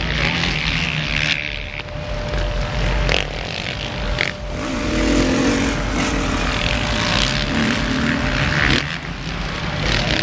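Several motocross bikes racing on the dirt track, their engines buzzing and revving up and down.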